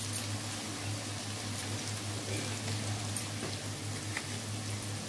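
Ginger paste, cumin powder and whole spices frying in hot oil in a steel wok: a steady sizzle with fine crackles and pops.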